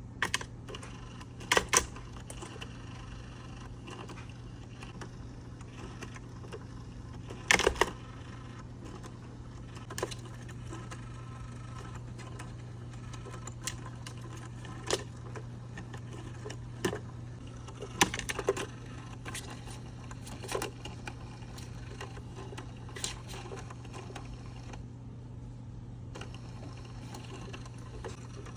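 Irregular clicks and clatters of an interactive cat toy being played with by cats, over a steady low hum. A few clatters stand out much louder than the rest, near the start, at about eight seconds and around eighteen seconds.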